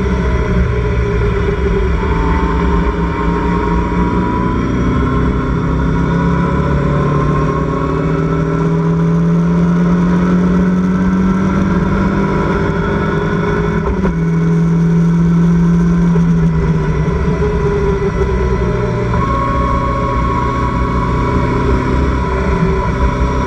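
Locost race car engine under load, heard from the open cockpit, its pitch climbing slowly for several seconds. About two-thirds of the way in it drops with a gear change, holds high briefly, then eases lower near the end, over a steady low rush of wind.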